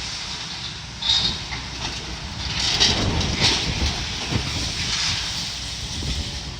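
Building demolition: metal beams and debris clanking and scraping as they are torn out, with sharper crashes about a second in and around three seconds in, over a steady low machine rumble.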